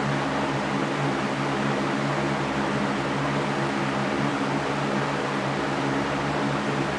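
Continuous white noise for sleep: an even, unchanging hiss with a low steady hum under it, like a fan or air conditioner running.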